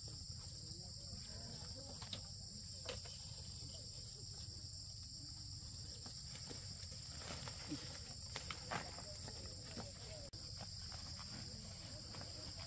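Steady high-pitched chirring of insects, crickets, running unbroken, with a few light knocks and clicks scattered through, the loudest about eight seconds in.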